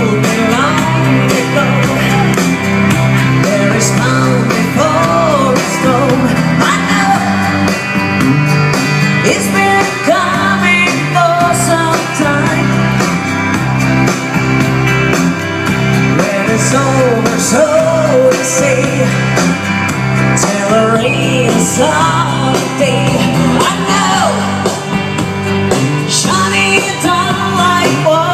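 Rock music: a band with guitars and a steady beat backing a woman singing a melody.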